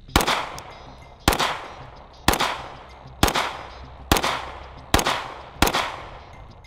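Glock 17 9mm pistol fired seven times at about one shot a second, each report sharp with a trailing echo that fades out before the next.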